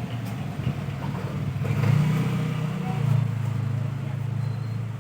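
A low, steady engine hum that swells about two seconds in and holds through most of the rest.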